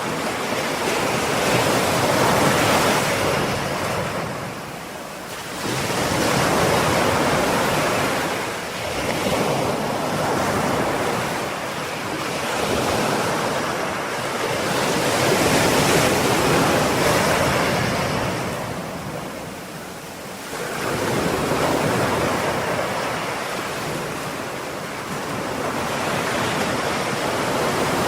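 Ocean waves breaking and washing on a shore, the surf swelling and ebbing in slow surges every few seconds.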